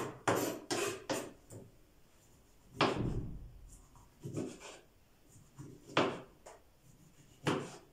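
A knife cutting peeled oranges into pieces on a cutting board, the blade knocking sharply against the board. There are four quick knocks near the start, then single knocks every second or so.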